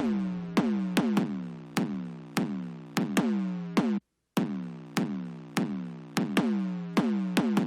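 Electronic music with a drum-machine beat. Sharp hits come about twice a second, each sliding down in pitch as it rings out. The track cuts to silence for a moment about four seconds in.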